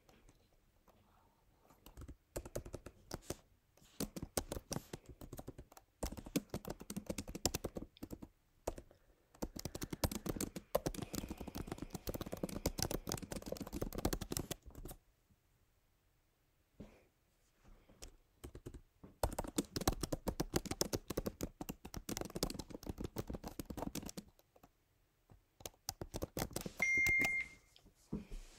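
Rapid typing on a computer keyboard in several long bursts, with short pauses between them. Near the end there is one short high beep.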